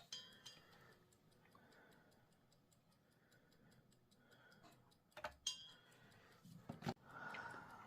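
Faint, fast, even clock ticking, with a few louder sharp clicks about five seconds in and again near the end.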